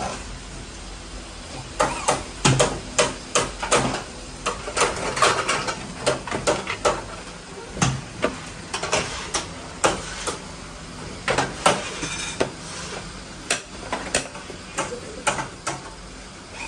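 Irregular metal knocks and clanks of bicycle parts being worked and handled, coming several a second at the busiest, some with a short ring.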